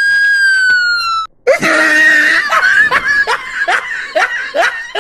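A long, high whistle-like tone that slowly sinks in pitch and cuts off about a second in, followed by a run of high-pitched laughter: falling "ha" sounds, about two a second.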